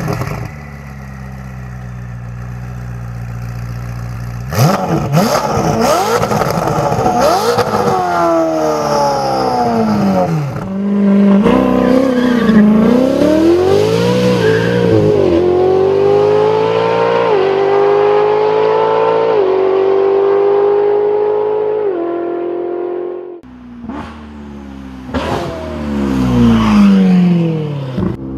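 Ferrari 488 GTB's twin-turbo V8 through a Novitec aftermarket exhaust, revving and accelerating hard, its pitch climbing and dropping back at each upshift. Several sharp cracks come from the exhaust a few seconds in and again near the end.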